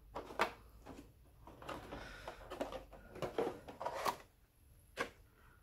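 Thin vacuum-formed plastic component trays being handled: a series of light plastic clicks and knocks with some rustling scraping as a tray is lifted out of a cardboard game box and set down.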